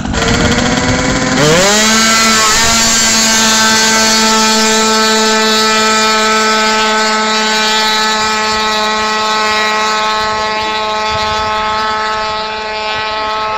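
Tuned two-stroke scooter engine revving quickly up about a second and a half in, then held at high revs at full throttle, a steady high-pitched buzz with little change in pitch.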